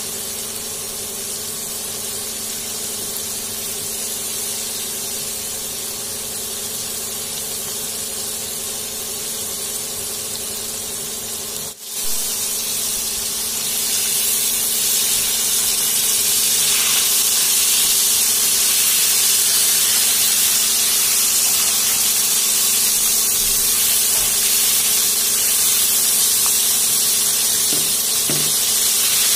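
Battered snapper fillets deep-frying in hot oil in a pan: a steady sizzle. It drops out briefly about twelve seconds in, then comes back louder.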